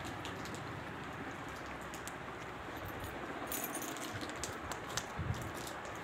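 Light clicks and taps from an Alexandrine parakeet moving about on a bed, scattered mostly through the second half, over a steady background hiss.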